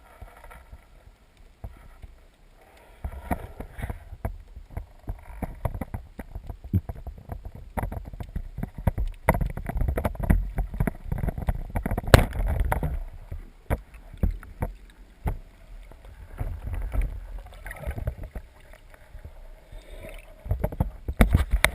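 Water splashing and sloshing around a small boat, with irregular knocks and rumbling handling noise; the sharpest knock comes about halfway through.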